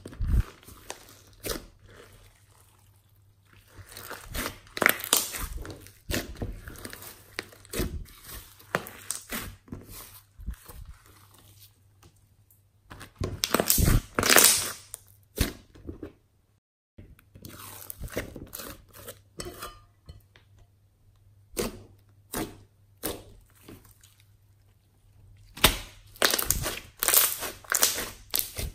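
Hands squishing, pressing and stretching a large mass of glossy slime: wet popping and crackling of trapped air in irregular bursts. The loudest burst comes about halfway through as the palms press down, and there is dense crackling again near the end as the slime is pulled apart.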